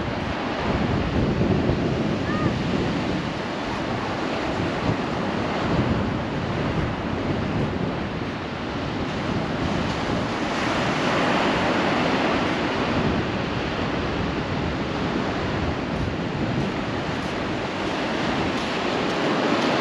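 Ocean surf breaking on a sandy beach, a continuous rush of waves, with wind on the microphone. The surf swells louder about ten seconds in as a bigger wave comes in.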